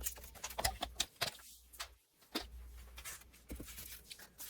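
Paper and a paper cutter being handled on a work surface: faint, scattered light clicks and taps.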